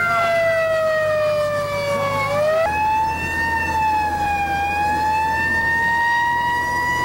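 Fire rescue truck's siren wailing, heard from inside the cab. The pitch slides slowly down, jumps back up about two and a half seconds in, then climbs slowly again, over the steady low hum of the truck.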